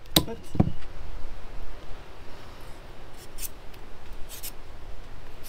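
A small knife scraping and cutting a pale plant stalk: two sharp clicks right at the start, then a few short scratchy strokes about three to four and a half seconds in.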